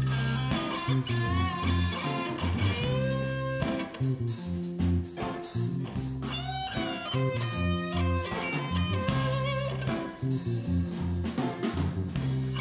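Background rock music led by guitar, with bass and drums.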